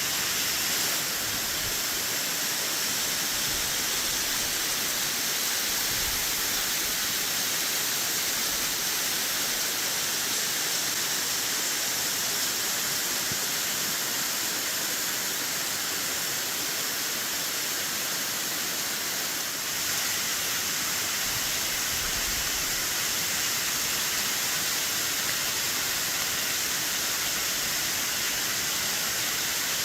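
Mary Jane Falls, a waterfall running at high spring run-off, pouring off a cliff: a steady, even hiss of falling water.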